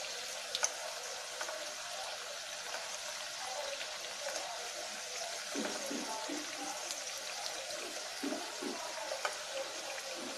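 Batter-coated bitter gourd pieces deep-frying in hot oil: a steady sizzle with fine crackling as they turn crisp. A few light clicks come from a slotted steel spoon turning them.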